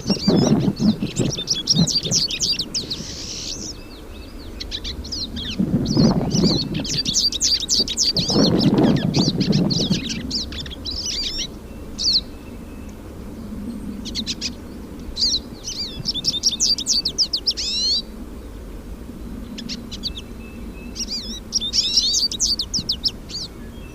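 Hooded siskins singing: long phrases of rapid, high twittering and trills, in bursts with short pauses between.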